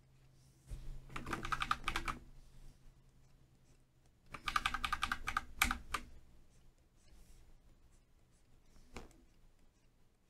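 Two faint bursts of rapid scratchy clicking, each about a second and a half long, about a second and four seconds in, from working a stylus and keyboard while sketching on a computer. A single soft tick follows near the end.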